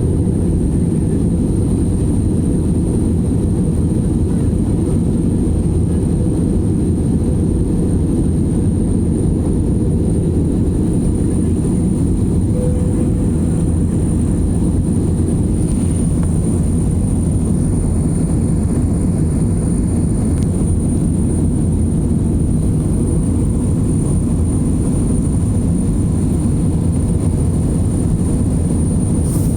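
Steady, loud airliner cabin noise in flight: engine and airflow rumble heard from inside the passenger cabin, even and unbroken, with a faint thin high whine above it.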